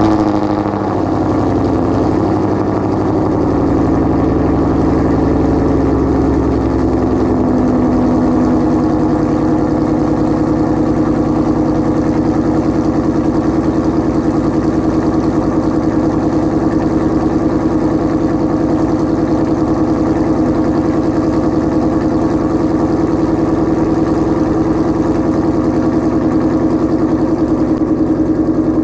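2016 Ford Mustang GT's 5.0-litre Coyote V8, breathing through Kooks headers and a Corsa Extreme axle-back exhaust, on a cold start: it fires right at the start with a loud flare, and the fast cold idle sinks over the first several seconds. It then settles into a steady, loud idle.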